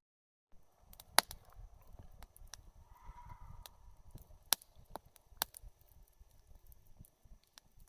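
Wood campfire crackling: irregular sharp pops of burning wood over a low rumble, starting about half a second in, with the loudest pop about a second in and two more strong pops near the middle.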